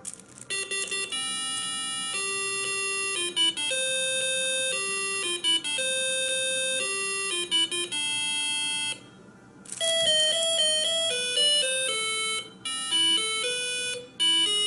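A simple electronic melody of beeping notes, played by a circuit kit's music module through its small speaker, with a short break about nine seconds in.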